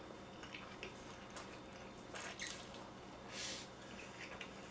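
Person slurping instant black-bean noodles (jjapaguri) and chewing wetly. Two louder slurps come about two seconds in and again about three and a half seconds in.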